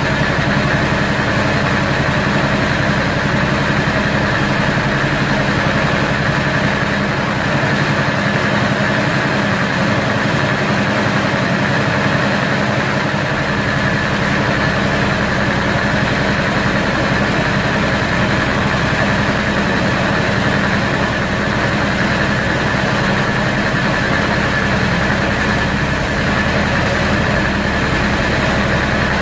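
Air compressor feeding an airbrush, running steadily: a constant motor hum with a hiss of air over it.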